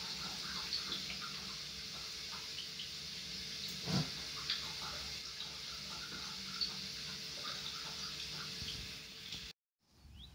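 Water running steadily, a hiss with small splashy ticks, with one louder thump about four seconds in; the sound cuts off suddenly near the end.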